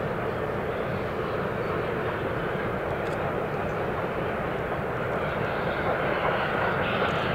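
Distant triple-headed steam locomotives working a passenger train, heard as a steady, dense roar without distinct separate beats, growing a little louder near the end as the train approaches.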